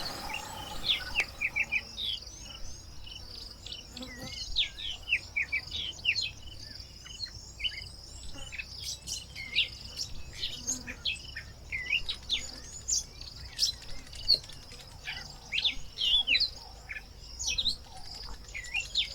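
Birds chirping and whistling in many short, quick down-slurred calls throughout, over a steady high-pitched insect drone.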